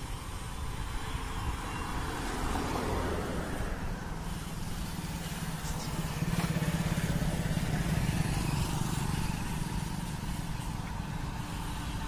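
Road traffic passing close by: vehicle engines and tyres swell and fade, one pass about three seconds in and a stronger engine hum in the middle.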